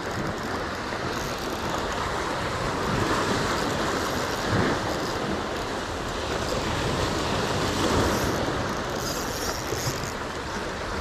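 Small sea waves washing and breaking against jetty rocks, a steady rushing noise, with wind on the microphone.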